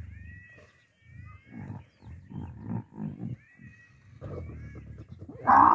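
Dromedary camels mating: a run of low, rhythmic grunts, about two or three a second, then a sudden loud bellow just before the end.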